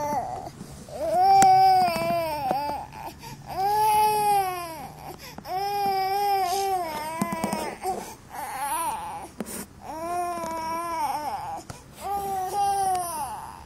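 Infant crying in a string of about half a dozen short wails, each rising and then falling in pitch, with brief gaps for breath between them.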